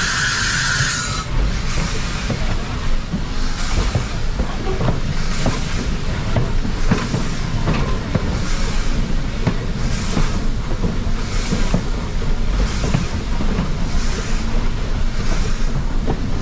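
1924 Baldwin 2-6-6-2T Mallet steam locomotive moving slowly, its exhaust chuffing steadily about once every 0.8 seconds over the rumble of the train. A loud burst of steam hiss stops about a second in.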